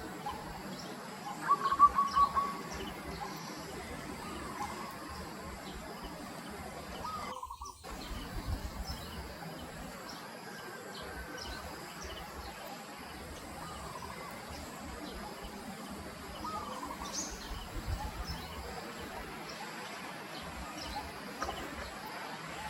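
Short animal calls, the loudest a brief burst about two seconds in, over steady outdoor background noise.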